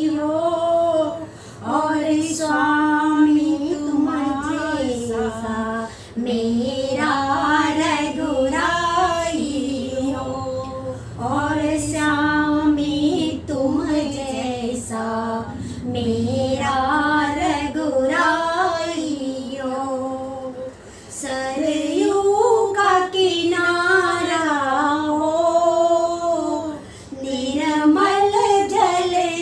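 Two women singing a Hindi devotional bhajan to Ram, unaccompanied by any instrument, in long, bending melodic phrases with short breaths between them.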